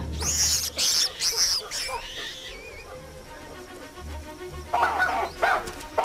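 Baboons calling in alarm: a run of shrill, wavering screams in the first two seconds, then harsher, lower barking calls near the end, over background music with a low drone.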